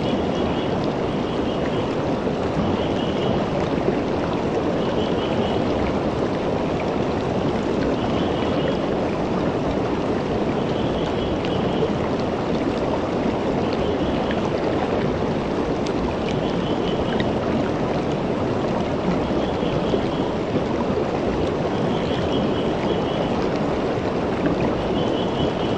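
Creek water flowing steadily over rocks and riffles around a boulder, an even rushing babble. A faint, short, high trill repeats every two to three seconds.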